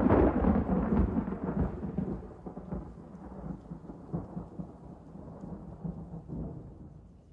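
Thunder: a sudden crack at the start, then a rolling rumble that fades out over several seconds.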